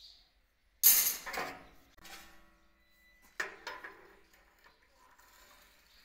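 Steel rebar knocking against a manual rebar stirrup bender and a steel worktable: a loud sharp metallic clank with ringing about a second in, a second clank about three and a half seconds in, and lighter clinks of metal on metal between.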